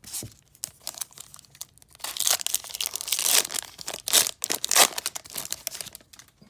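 Wrapper of a trading-card pack being torn open and crinkled: a few light crackles at first, then about four seconds of loud crinkling and tearing.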